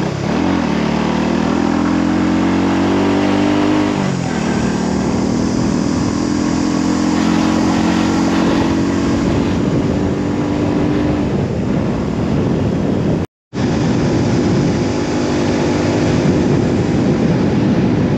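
Motorcycle engine pulling away, its pitch rising for about four seconds and then dropping at a gear change, before running steadily under load with rushing wind noise. The sound cuts out for a moment near the end.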